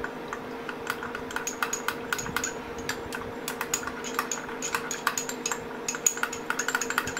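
A spoon clicking quickly and irregularly against a small bowl as cornflour and water are stirred into a slurry, over a steady low hum.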